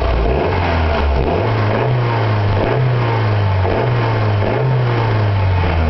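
Nissan Hardbody's KA24E four-cylinder engine, heard at the exhaust, revved up about a second and a half in and held at raised speed with a few small dips, then easing back near the end. It revs cleanly, showing no sign of the rough, surging idle it suffers from.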